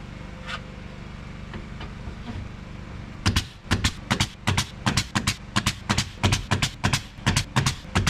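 A steady motor hum, then from about three seconds in a fast run of loud, sharp bangs, about three to four a second: a pneumatic nail gun fastening live-edge siding boards.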